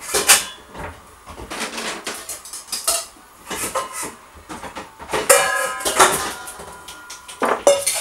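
Dishes, pots and cutlery clattering and clinking as kitchenware is rummaged through and moved about, with one piece ringing on briefly a little after five seconds in.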